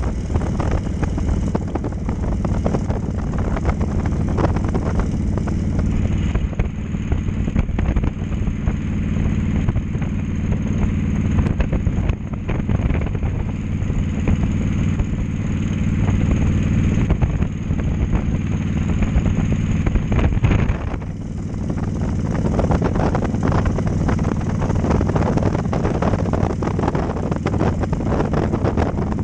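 Cruiser motorcycle engine running steadily at road speed, with wind rushing over the microphone.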